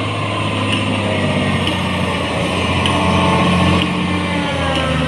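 Diesel engine of a JCB 4DX backhoe loader running steadily at working speed, with a whine that shifts up and down in pitch over it and faint ticks about once a second.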